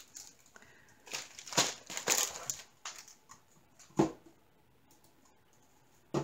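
Plastic packaging crinkling in several short bursts, handled by hand, then a single knock about four seconds in and another sharp knock near the end.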